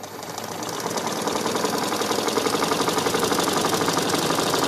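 Black Butterfly domestic sewing machine, driven by a small belt-drive motor, stitching through bedcover fabric and batting. It runs with a rapid, even rhythm that gets louder over the first second, then holds steady.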